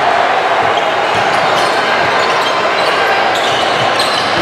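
Basketball gym sounds during a game: a ball bouncing on the court over a steady, echoing murmur of voices in the hall.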